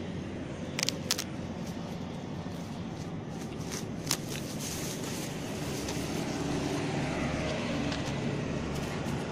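Steady rumble of road traffic, with a few short sharp clicks about a second in and again around four seconds.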